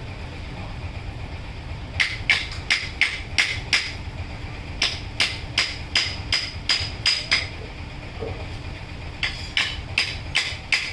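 Hammer blows on metal in quick runs of about three strikes a second, each with a short metallic ring. The first run starts about two seconds in, and there are brief pauses between runs. A steady low workshop rumble runs underneath.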